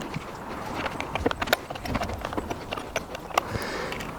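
Irregular light clicks and knocks of a hand tool working screws out of a chainsaw's plastic top cowling, with the plastic parts being handled.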